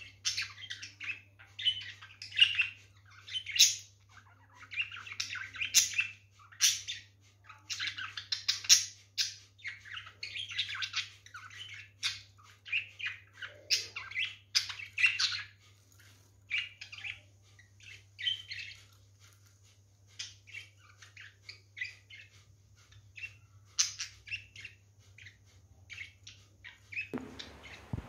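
Pet budgerigars chirping and chattering in quick runs of short, high calls, busiest in the first half and sparser later, over a faint steady low hum. Music comes in near the end.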